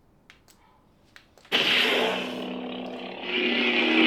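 A few faint clicks in near silence, then about a second and a half in a lightsaber sound font (Kyberphonic's The Stranger) ignites with a sudden burst and settles into its raspy, almost mechanical hum, swelling louder near the end.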